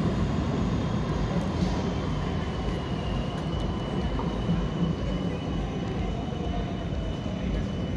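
Steady rumble of a moving vehicle, with a faint high whine over it that drifts slowly lower.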